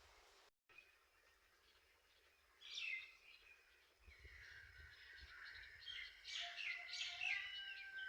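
Birds chirping and calling: a short burst of chirps about three seconds in, then a busier run of several birds' chirps and whistles, some gliding in pitch, over the last two seconds.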